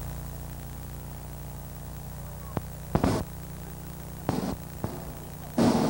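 Steady electrical hum of an old home-video recording, with several short sharp pops a little over two, three, four and almost five seconds in, then a louder burst of sound near the end.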